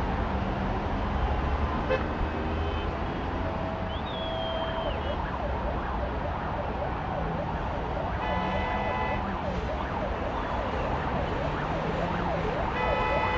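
Steady city traffic rumble with an emergency-vehicle siren yelping in quick rising-and-falling sweeps through the second half. Horns blare about eight seconds in and again near the end.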